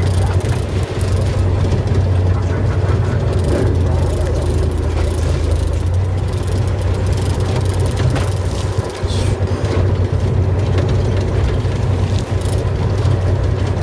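Fishing boat's engine running steadily with a constant low hum, under wind and water noise.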